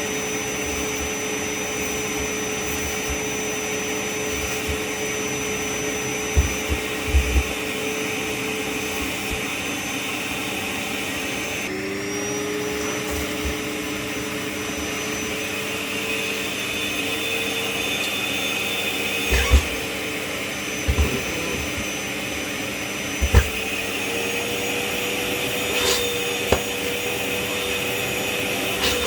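Kärcher WD 6 P wet and dry vacuum cleaner running steadily. Its motor pitch drops suddenly about twelve seconds in and then climbs slowly back. A few short low knocks come through now and then.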